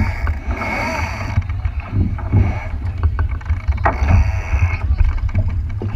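Low wind rumble on the microphone aboard a moving boat, with water rushing and splashing against the hull, hissing louder near the start and again about four seconds in.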